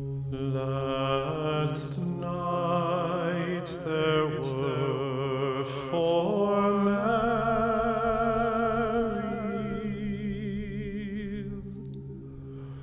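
A voice singing long held notes with a wavering vibrato over a steady low drone, in a slow chant-like line.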